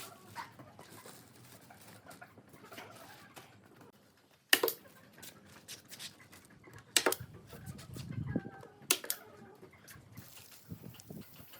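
Faint clucking with four sharp knocks over it, the loudest about four and a half seconds in and two close together about nine seconds in.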